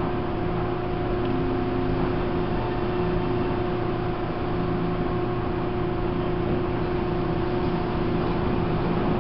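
Taiwan Railways E1000 push-pull Tze-Chiang express running at steady speed, heard from inside a carriage: an even rumble with a few constant hums held at one pitch.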